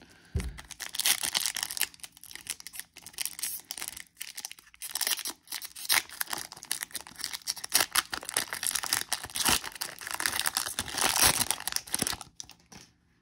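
Plastic trading-card pack wrapper being torn open and crinkled by hand, a dense crackling that runs on for about twelve seconds and stops shortly before the end.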